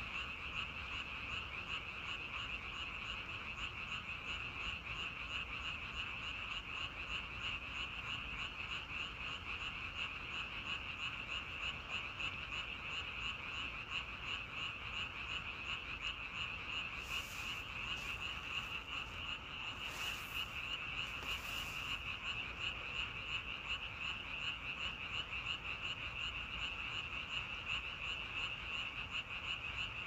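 A chorus of many frogs calling together, a dense, steady, rapidly pulsing high-pitched trill with no breaks.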